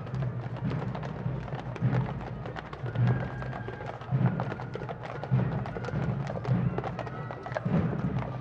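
Horseshoes of a team of heavy draught horses clip-clopping on a paved street, with music carrying a low drum beat about once a second.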